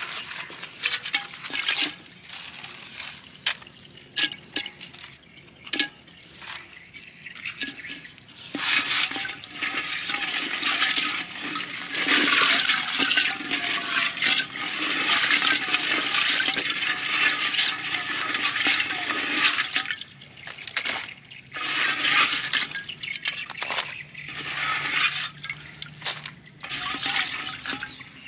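Water splashing and sloshing in a clay pot as live crabs are scrubbed and turned by hand. The splashing is scattered at first, then louder and nearly continuous through the middle stretch, and comes in short bursts near the end.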